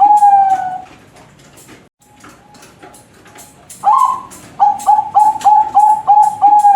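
Zebra dove (perkutut) singing its cooing song: a phrase ends in a long drawn-out falling note at the start, then after a short pause a new phrase opens with a rising note about four seconds in, runs into a quick series of even coos, and closes with another long falling note at the end.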